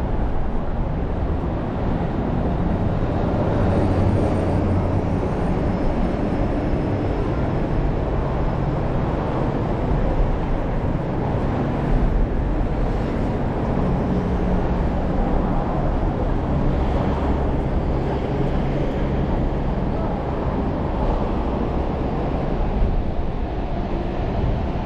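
Busy city street ambience: a steady rumble of road traffic.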